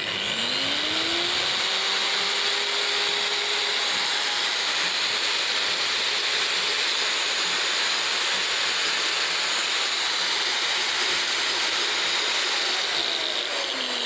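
Tank 9-inch angle grinder, unloaded with no disc on the spindle, switched on: a rising whine as it spins up, then a steady high whine and motor noise, winding down near the end. Its gearbox has been relubricated and the big gear's small bearing reseated, and it is running 100% OK.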